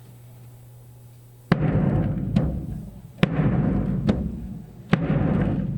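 Surdo bass drum beating out the marcha rancho pulse, starting about a second and a half in. Big ringing low strokes come about every 1.7 s, with a shorter, sharper stroke between them.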